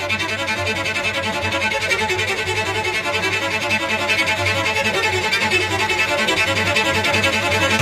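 Background music at a steady, fairly loud level with a busy, continuous texture.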